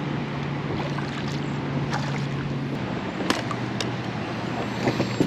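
Steady wind and water noise around a fishing kayak, with a low steady hum that drops in pitch about halfway through and a few light knocks and clicks near the end.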